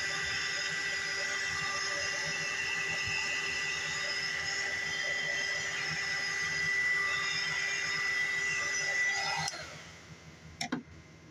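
Electric heat gun running steadily, its fan giving a whine over a steady rush of air while it shrinks heat-shrink tubing over a crimped cable lug. It is switched off about nine and a half seconds in, and a couple of sharp clicks follow near the end.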